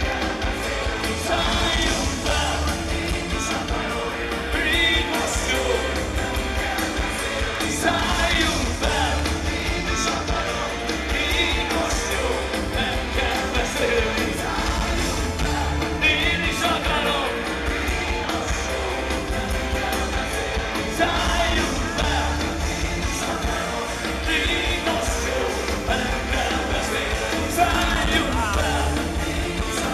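Live rock band playing with male vocals, drums, keyboard and guitar, with a heavy, boomy bass. It is heard from within the concert crowd.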